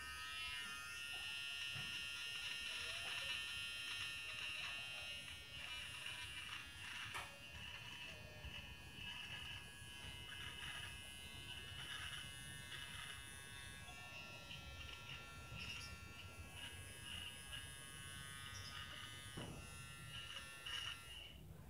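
GSE 009 cordless electric hair clipper buzzing steadily as it trims sideburn and beard stubble, with irregular small crackles over the buzz.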